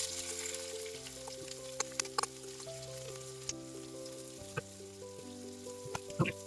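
Food frying in hot oil, a steady sizzle, with a few sharp clicks and taps from about two seconds in. Background music plays throughout.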